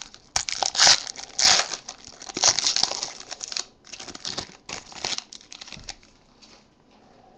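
Shiny foil wrapper of a trading-card pack crinkling and tearing as it is ripped open and the cards are pulled out. The crinkling comes in rapid bursts and dies away about five seconds in.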